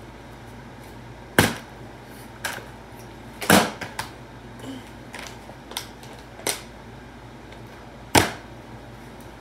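Plastic water bottle knocking and clattering on a tile floor as it is dropped, kicked and flipped: a string of sharp clacks, the loudest about a second and a half, three and a half and eight seconds in.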